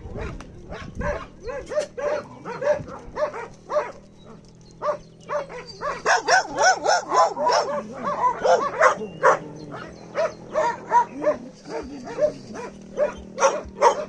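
Several dogs barking over one another in short, repeated barks, a few a second, easing off about four seconds in, then thickest from about six to nine seconds.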